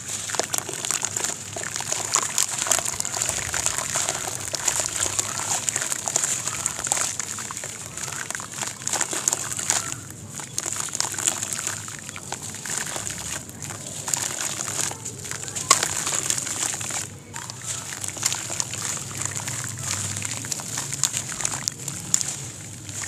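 A wet sand-cement block crumbling in the hands over a basin of water: continuous gritty crunching and crackling, with crumbs splashing and water sloshing in the basin.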